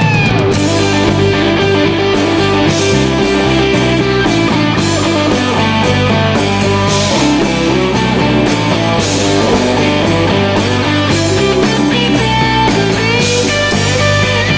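Rock band playing live: a single-cutaway electric guitar over drums and cymbals.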